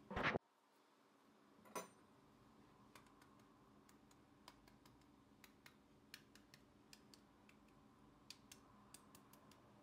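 A fork pressing into crisp baklava, its thin phyllo layers crackling in faint, scattered ticks, with a short louder burst at the very start.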